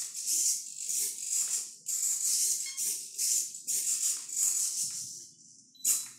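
Small pan-and-tilt servos on an RC car's FPV camera mount buzzing in short, irregular bursts, about two a second, as they follow the movements of the head-tracking goggles. A sharp click comes just before the end.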